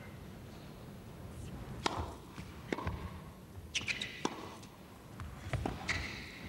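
Tennis rally on an indoor court: racquets strike the ball back and forth in sharp, separate pops about every second, with the ball's bounces in between.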